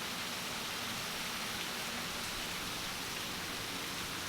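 Heavy tropical downpour, rain pouring down in a steady, even hiss.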